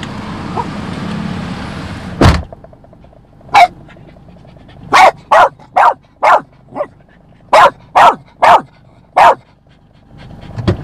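A dog barking: nine sharp barks, one and then two runs of four, starting about three and a half seconds in. Before that a steady low hum, cut across by a single heavy thump about two seconds in.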